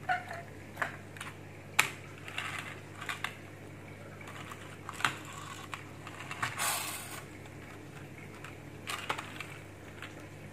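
A toy train model being handled and set down on a table: scattered sharp clicks and taps, with a short rustle about six and a half seconds in, over a steady low hum.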